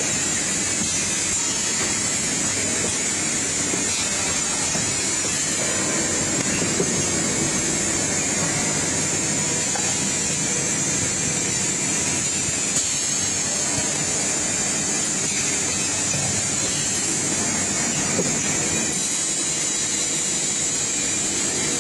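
Automatic hot foil stamping machine running: a steady, even mechanical noise with a constant hiss.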